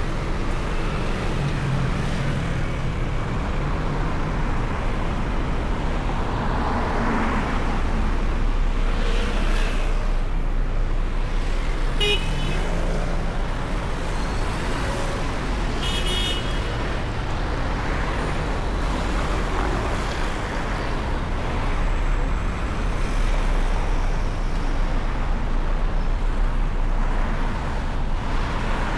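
City road traffic running steadily under a constant low rumble. Two brief high-pitched toots come through, about twelve seconds in and again about four seconds later.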